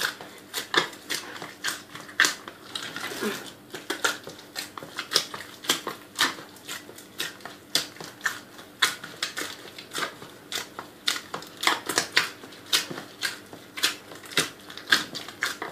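Brown whole-wheat chapati dough being kneaded by hand, punched and pressed with the knuckles of a closed fist. It makes a steady run of short knocks and squishes, about two a second.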